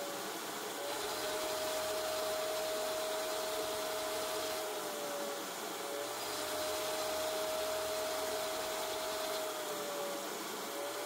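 Wet/dry shop vac running with its hose nozzle worked over a cloth car seat headrest: a steady motor whine over rushing air. The pitch sags briefly three times.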